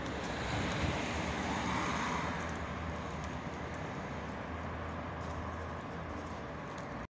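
Steady outdoor city background noise: a low hum under an even hiss, with no single clear event.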